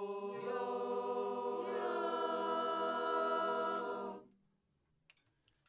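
A group of young male and female voices singing one long held chord together, more voices joining about half a second and two seconds in, swelling, then stopping about four seconds in.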